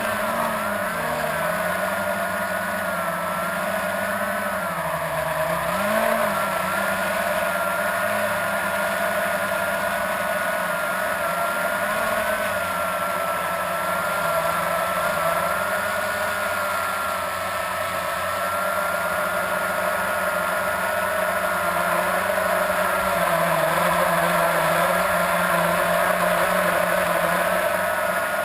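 Blade 350 QX quadcopter's motors and propellers humming steadily, the pitch drifting up and down, most over the first few seconds, then holding steadier.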